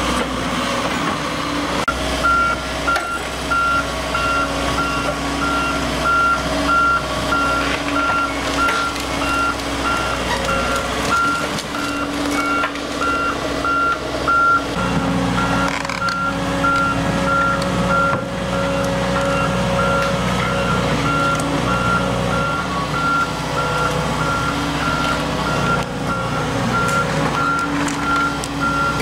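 Volvo EC160DL excavator's diesel engine running under work, with its travel alarm beeping at one steady pitch, about two beeps a second, from about two seconds in as the machine tracks.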